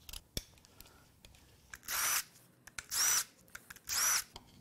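Cordless power tool on a long extension and socket, spinning out water pump bolts in three short bursts about a second apart, each with a high motor whine.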